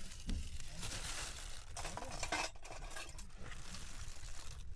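Cooking sounds: a utensil stirring and clinking in a pot, over a steady hiss like frying food.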